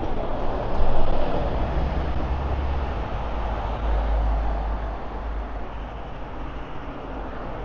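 Road traffic: a vehicle passing close by with a deep engine rumble over steady street noise, swelling about a second in and fading after about five seconds.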